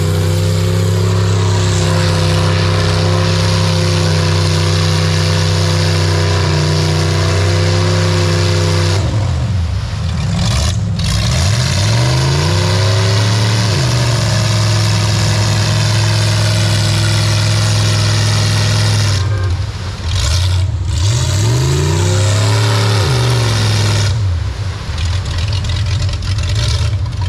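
An off-road vehicle's engine runs hard at high, steady revs. Twice it drops off and revs up and down for a few seconds before holding steady again.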